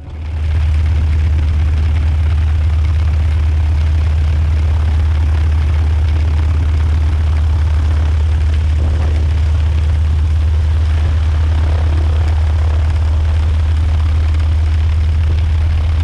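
CAC Winjeel trainer's Pratt & Whitney R-985 nine-cylinder radial engine and propeller running steadily at low power on the ground: an even, low drone.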